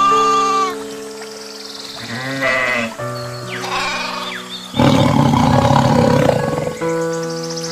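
Goats bleating over background music with long held notes: a short wavering bleat at the start, another about two and a half seconds in, and a longer, harsher call through the middle.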